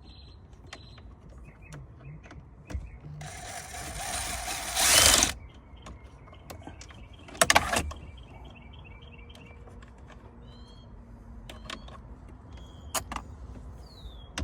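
Scattered clicks and knocks of tools and fasteners being worked on dashboard trim while its bolts are taken out, with a longer noisy stretch building up about three to five seconds in and a short loud burst about halfway through. Faint high chirps sound in the second half.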